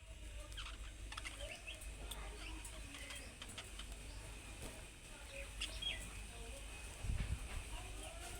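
Budgerigars chirping and chattering in a steady stream of short calls, over a low steady hum. A brief low thump comes about seven seconds in.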